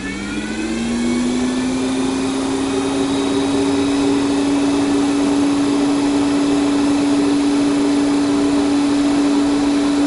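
Heng's Vortex II RV roof vent fan spinning up to high speed, its whir rising in pitch over about the first second, then running with a steady hum and rush of air. The fitted insect screen adds no extra noise.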